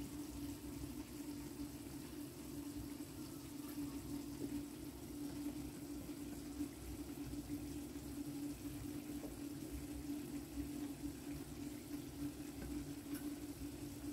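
Steady low hum holding one pitch, with a faint rushing noise beneath it.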